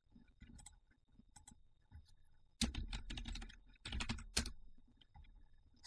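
Typing on a computer keyboard: a few scattered key taps, then two quick flurries of keystrokes past the middle.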